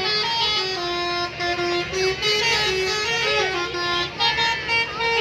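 Bus 'telolet' musical air horn playing a melody: several horn trumpets sounding held notes together and stepping from note to note, over a low engine rumble.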